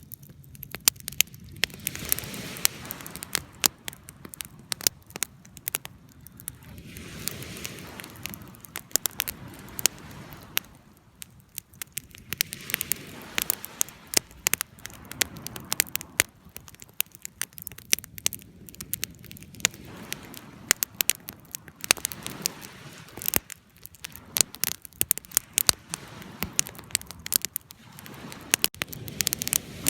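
Fire crackling: many sharp pops and crackles at irregular intervals, over a soft hiss that swells and fades every few seconds.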